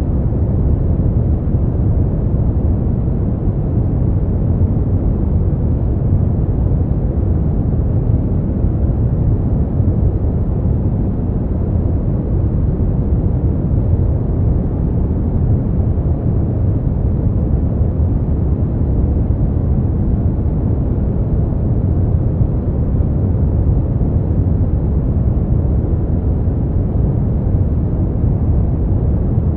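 Smoothed brown noise: a steady, deep hiss with most of its weight in the low end, fading off in the higher range, with no changes or events.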